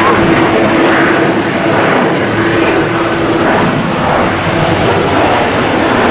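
Boeing 737-800's CFM56-7B jet engines at takeoff thrust as the airliner rotates and lifts off: loud, steady jet noise with a steady mid-pitched tone running through it.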